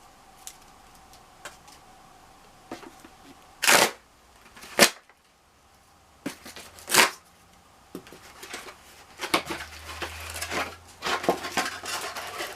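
Mail packaging being handled and opened: scattered light clicks and taps, three short loud rips about four, five and seven seconds in, then continuous crinkling and rustling of packaging toward the end.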